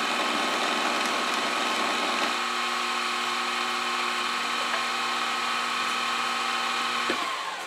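Milling machine spindle running with an end mill taking a very light finishing pass, about half a thou, along a slot in a small metal part, the cutter only just touching the work. It makes a steady whine, a lower steady tone joins about two seconds in, and near the end the machine shuts off and winds down.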